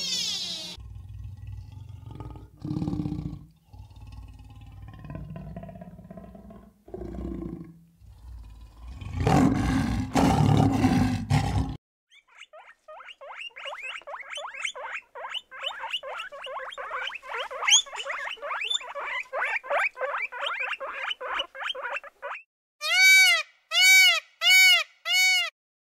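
A run of different animal calls: about eleven seconds of low, rough roaring and growling, then a long stretch of rapid chattering clicks, then four short, evenly spaced calls that rise and fall in pitch near the end.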